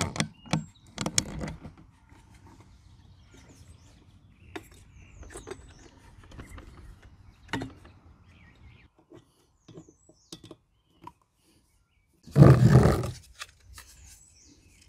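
Clicks, knocks and rubbing of plastic parts being handled as the fuel tank and its rubber mount are pressed back into a leaf blower's housing, with a louder rushing noise lasting about a second near the end.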